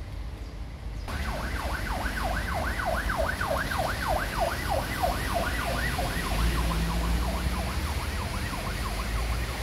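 Emergency vehicle siren on a fast yelp, about three rising-and-falling sweeps a second. It starts suddenly about a second in and fades toward the end, over a steady rush of background noise.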